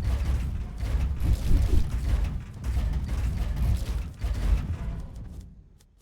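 Fast typing on a membrane keyboard: a dense clatter of key presses with dull low thuds, fading out near the end.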